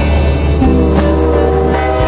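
Background music with a strong bass line, guitar and drum hits.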